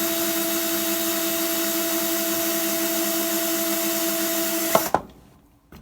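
Power drill spinning the cutter of a Hornady Cam Lock case trimmer to trim a rifle brass case, running with a steady whine. It stops abruptly just before five seconds in, with a couple of sharp clicks.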